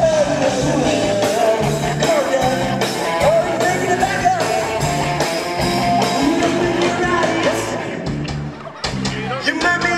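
Rock band playing live through a PA: electric guitar over drums, with singing.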